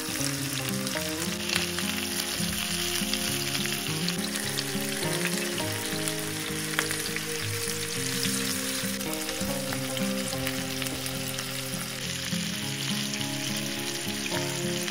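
Chicken legs frying in hot oil in a pan: steady sizzling, peppered with small crackles and spits of fat. Background music plays underneath.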